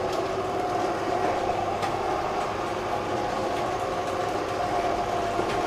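Electric motors of motorized window shades running as the shades roll up, a steady hum.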